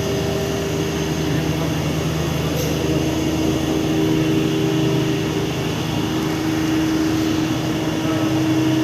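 Steady drone of heavy industrial plant machinery running, with a low hum and a held tone that steps down slightly about three seconds in.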